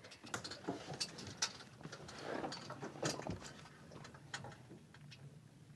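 Faint, irregular ticks and light knocks, with a slightly louder soft patch about two to three seconds in.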